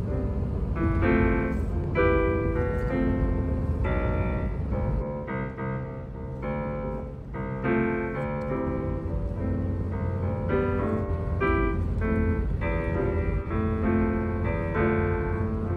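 Piano music, its notes changing about every half second, over the steady low rumble of a car driving on a highway.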